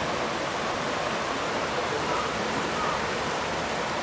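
Steady rushing of a shallow mountain creek running over rocks and small cascades.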